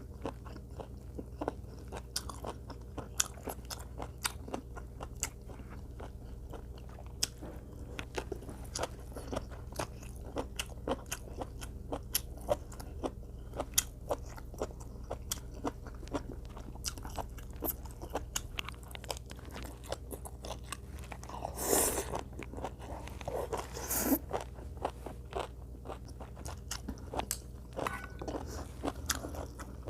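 A person eating close to the microphone: chewing and biting, with many small crunchy clicks and mouth sounds, and two louder, longer noises about two-thirds of the way through.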